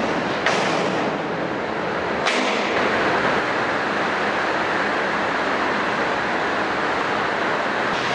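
Steady, loud rushing noise, with two sharp knocks about half a second and two seconds in.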